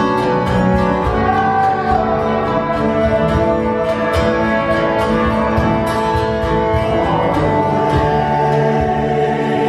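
Live band playing an instrumental passage of a folk song, with guitars over a steady beat.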